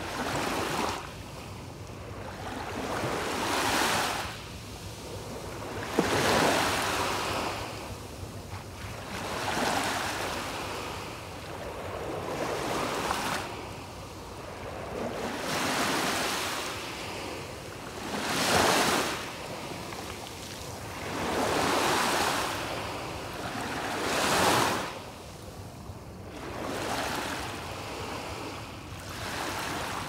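Small waves breaking and washing up a sandy beach. Each wave is a rush of surf that swells and fades, one after another about every three seconds.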